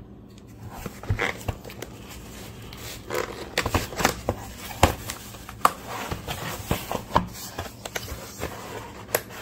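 Cardboard shipping box being torn open along its tear strip: irregular ripping and scraping of the cardboard with several sharp snaps.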